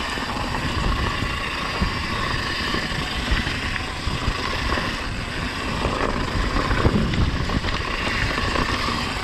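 Wind rushing over a camera microphone riding with a mountain bike on a dirt trail, with a low rumble of tyres on the ground and short knocks as the bike rattles over bumps.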